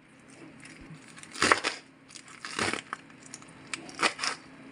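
Kitchen knife slicing through a bunched handful of fresh spinach on a wooden chopping board: a few crunching cuts about a second apart, with light taps of the blade on the board.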